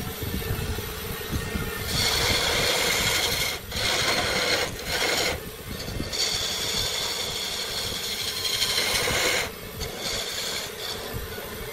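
Electric woodworking tool running with a steady motor hum. From about two seconds in there are several stretches of loud, high-pitched noise as the tool works against the wood, the longest lasting about three seconds.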